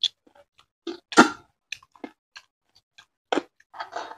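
Close-up mouth sounds of eating a fried chicken leg: scattered wet smacks and clicks of chewing. The loudest smack comes about a second in.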